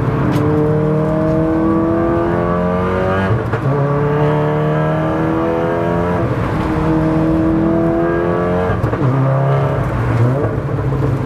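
Big-turbo, 500 bhp 2.0-litre turbocharged four-cylinder of a Golf R track car, heard inside the stripped cabin, pulling hard under acceleration. Its pitch climbs and drops back three times as it shifts up through the gears.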